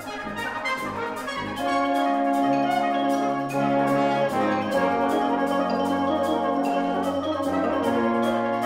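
Brass band playing long held chords, the full band coming in louder about two seconds in.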